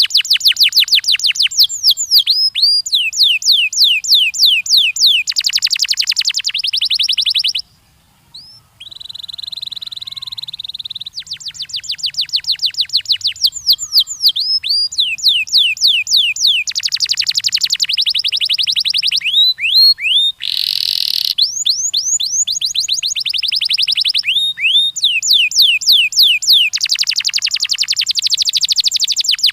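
Domestic canary singing in long rapid trills of repeated downward-sweeping notes, changing from one trill to the next. There is a brief pause about eight seconds in, followed by a steady buzzy roll, and a harsh rasping note about two-thirds of the way through.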